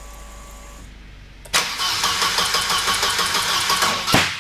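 Starter motor cranking a Volvo B230FT 2.3-litre turbo four-cylinder, with a fast rhythmic chug of about five pulses a second for some two and a half seconds before it cuts off. This is a trial start of the engine on a newly fitted Megasquirt ECU. Before the cranking there is a faint steady hum with a high whine.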